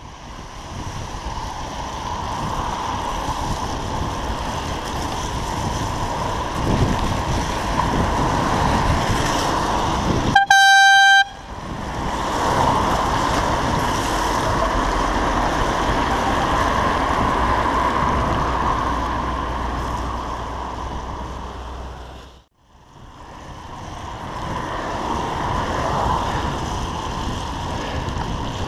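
Steady wind and wet-road tyre noise from riding a bicycle in the rain, picked up by a helmet camera. About ten seconds in comes one loud, single-pitched horn blast lasting under a second, and later the sound cuts out for a moment.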